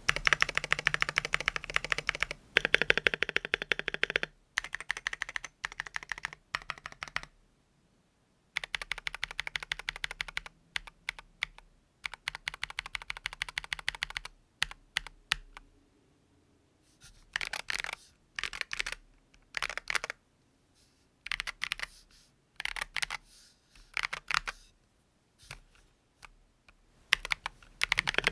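Typing on a KBD67 R3 mechanical keyboard with silicone dampening, fitted with stock, unlubed Tecsee Purple Panda 68 g tactile switches. Fast runs of keystrokes are broken by short pauses, and the second half has sparser groups of presses. The unlubed switches give what the owner calls an uncontrolled and messy sound.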